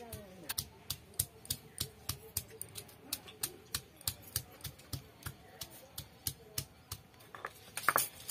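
Cylindrical stone roller knocking peeled garlic cloves against a flat stone grinding slab (Bengali shil-nora), crushing them for a curry paste, about three knocks a second, with a louder, rougher stroke near the end.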